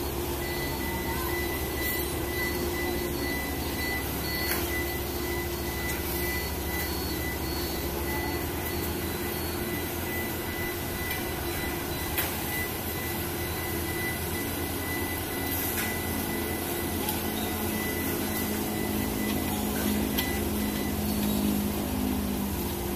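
Diesel construction machinery running on a building site: a steady low engine drone, with a thin high steady tone that stops about two-thirds of the way through, a deeper tone joining in near the end, and a few sharp metal knocks.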